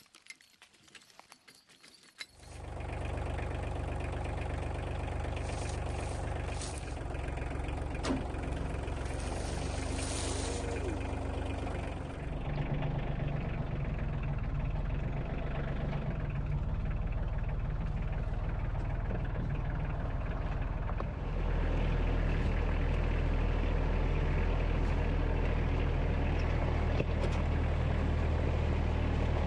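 Tractor engine running steadily while working to load a log onto the sawmill; it comes in suddenly about two seconds in and gets louder about 21 seconds in.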